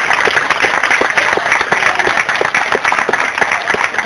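Crowd applauding, many hands clapping without a break.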